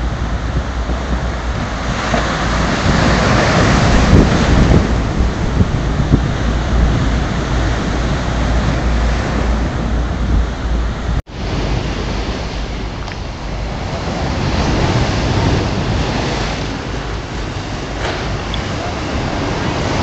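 Rough sea surf breaking and rushing onto the shore, with wind buffeting the microphone as a low rumble. The wash swells loudest a few seconds in, and the sound drops out for an instant about eleven seconds in before the surf carries on.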